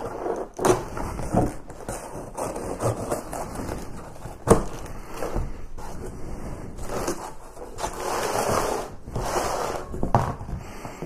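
Cardboard shipping box being slit along its edge with a knife and its flaps pulled open: irregular scraping, rubbing and crackling of cardboard, with a sharp knock about four and a half seconds in.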